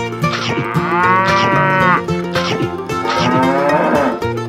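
Cows mooing: two long moos, each arching up and falling away over about a second and a half, over light background music.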